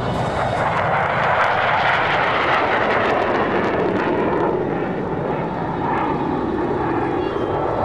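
Jet noise from a Thunderbirds F-16 Fighting Falcon flying a smoke-trailing manoeuvre: a loud, steady rushing roar that holds throughout.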